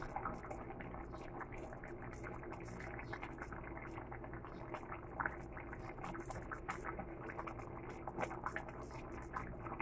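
Pot of vegetable and fish stew simmering on the stove: faint bubbling with small scattered pops over a steady low hum, and a wooden spoon stirring through the broth now and then.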